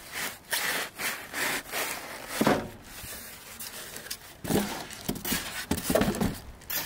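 Styrofoam packing blocks scraping and rubbing against each other and against the cardboard box as they are lifted and pushed back into it, in a series of short, uneven scrapes.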